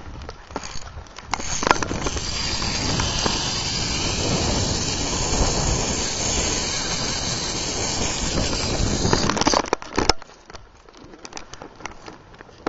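Zip line trolley pulley running along a steel cable: a steady rushing whir with a faint high whine, starting sharply about a second in and stopping abruptly with a clack around ten seconds in.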